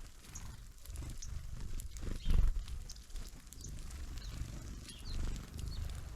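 Small birds at a feeder giving short high calls, over low knocks and rumble close to the microphone; the loudest knock comes a little over two seconds in.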